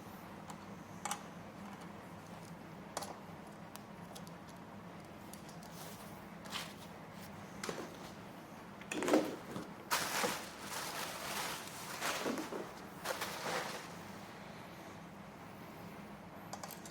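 Handling noises while assembling a gaming chair: scattered single clicks and knocks, then a few seconds of scraping and rustling starting about nine seconds in, the loudest of it near the start of that stretch.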